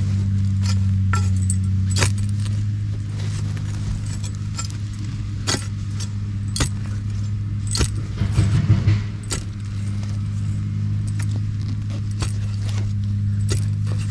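Digging tool scraping and striking soil, with scattered sharp knocks and metallic clinks and a flurry of strikes about eight seconds in, over a steady low hum.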